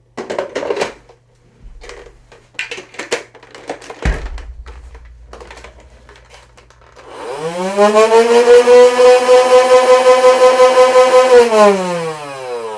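Motorised Nerf Rival blaster (the Khaos) running on D batteries: a few clicks and a knock of handling, then the flywheel motors spin up with a rising whine, hold steady with a rapid regular pulsing as it fires, and spin down with a falling whine near the end.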